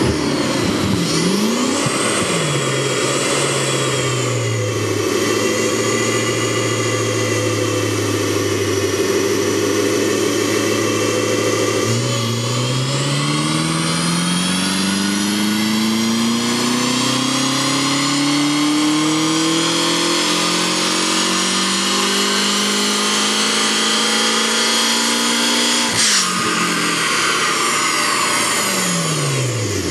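A 2013 BMW M5 (F10) twin-turbo V8 through a RacePrecision GTS stainless exhaust, doing a full-throttle pull on a chassis dyno. After a short rev it holds a steady note for about ten seconds. It then climbs smoothly in pitch for about fourteen seconds, cuts off sharply near the end and winds down.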